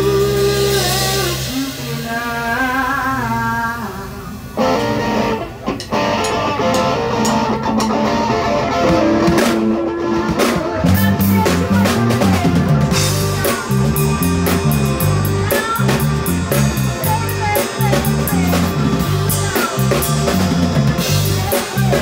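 Live rock band playing: drum kit, electric guitar and bass. The first few seconds are a sparser passage of held, wavering notes, and about four and a half seconds in the full band comes back in with a steady drum beat.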